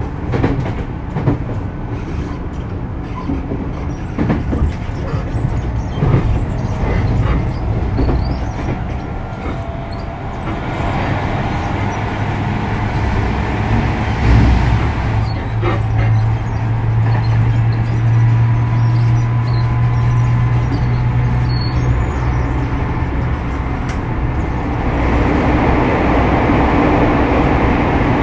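Tokyu 6000 series electric train running between stations, heard from inside the car. A continuous rumble of wheels on rail with a low drone grows louder about ten seconds in and again near the end, and a faint steady whine sounds in the middle.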